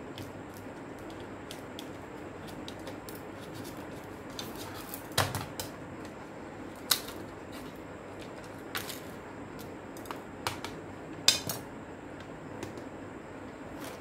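Scattered clicks and taps of a portable CD player's plastic casing and small parts being handled and pulled apart, the loudest about five, seven and eleven seconds in, over a steady background hiss.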